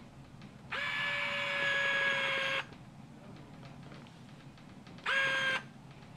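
The power-lacing motor in a Nike HyperAdapt 1.0 self-lacing sneaker whirring as it drives the laces. There is one steady whir of about two seconds, then a second short whir of about half a second near the end. Each starts with a quick rise in pitch.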